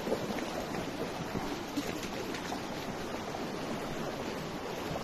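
Steady rushing of a shallow river, with splashing as people wade through it.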